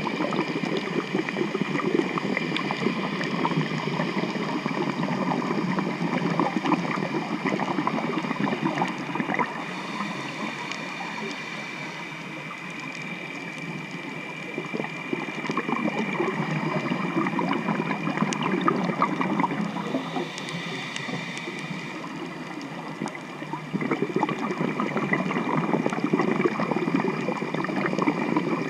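Motorboat engine and propeller noise heard underwater: a steady high whine over a dense crackling hiss. It eases off twice and swells up again near the end.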